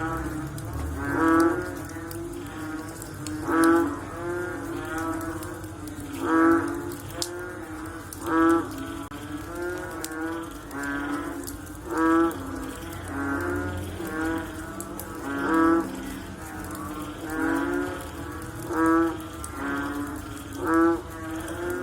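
Frogs calling in a chorus after rain: low, pitched croaks repeat without pause, with a louder call about every two seconds.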